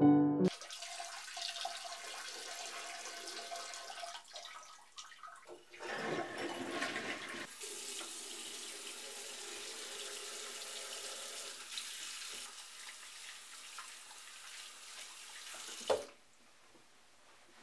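Tap water running into a bathroom sink while hands are rinsed under it, the splashing louder for a few seconds partway through. It cuts off near the end with a sharp knock.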